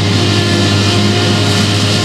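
Claas Jaguar 970 forage harvester chopping rye beside a John Deere tractor and trailer, a steady, loud heavy-machinery drone with background music over it.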